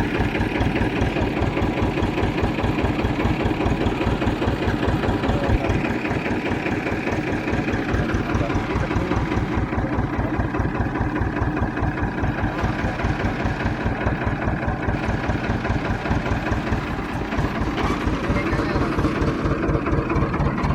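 Tractor's diesel engine running steadily at low revs, an even, rapid low chugging.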